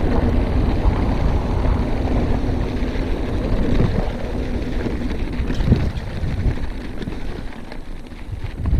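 Wind buffeting an action camera's microphone and tyre rumble from a mountain bike riding a dirt trail, steady and low, with a couple of brief knocks from bumps about halfway through.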